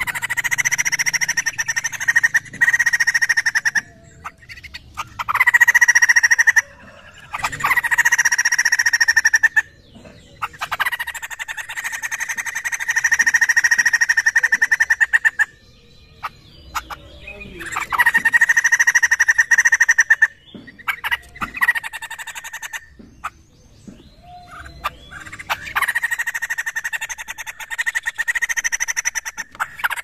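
White-crested laughingthrush calling loudly in a run of long phrases of rapid chattering, each a few seconds long, with short pauses between them.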